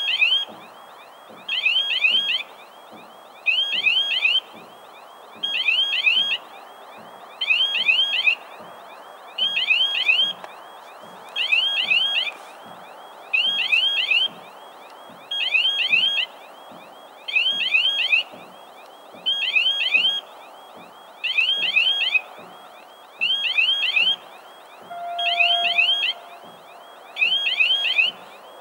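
Railway level crossing warning sounder: a warbling tone in short bursts, repeating about every two seconds, warning road traffic that a train is approaching and the crossing is closed. A brief steady tone sounds faintly about 25 seconds in.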